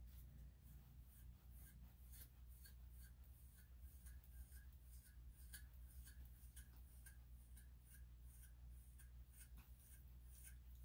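Metal grooming comb raked through a long-haired Chihuahua's coat: faint, quick, evenly repeated strokes working through a clump of shedding undercoat, over a steady low hum.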